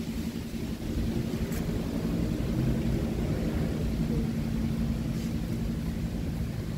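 Low, steady engine drone from a passing motor, swelling about halfway in and dying away near the end, over a low rumble.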